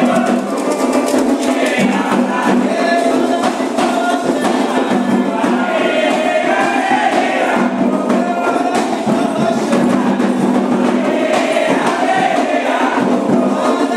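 A group of voices singing Candomblé ritual chants together over steady, dense percussion.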